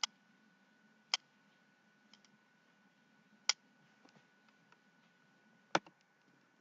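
Fidget spinner that was dropped in soup, making four sharp clicks at irregular intervals with fainter ticks between, the last click the loudest.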